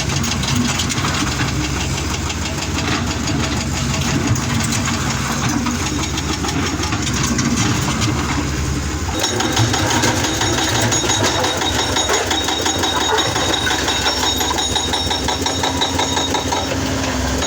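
Excavator's diesel engine running steadily. About nine seconds in, the sound changes abruptly and a thin high whine comes in over the engine.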